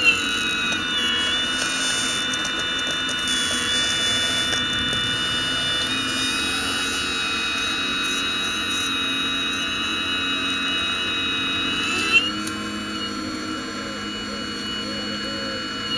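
Radio-controlled Hitachi ZX870 scale excavator's electric motors running with a steady high-pitched whine while it digs, the pitch shifting at the start and again about 12 seconds in, where a single sharp click stands out.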